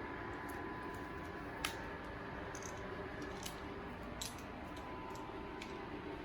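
Small cooling fan running steadily with a faint whine, with a few light clicks, the sharpest about one and a half seconds in.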